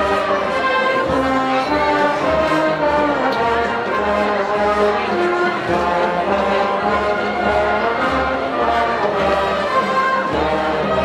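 Brass band playing a slow processional march: brass holding the melody in long notes over a regular low drum beat.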